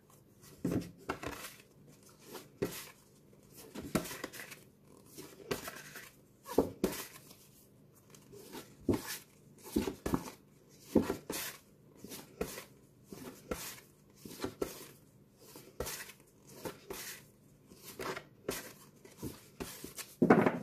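Stiff cardboard flashcards leafed through by hand, each card swished off the front and slapped onto the stack about once a second, with a louder thud near the end.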